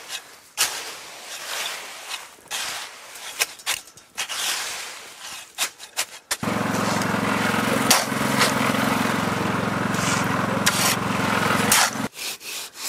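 A rake scraping and dragging through wet gravelly concrete in irregular strokes with small knocks. About six seconds in, a concrete mixer's motor takes over, running with a steady hum, and cuts off suddenly near the end, giving way to short rubbing strokes of a straightedge across the fresh concrete.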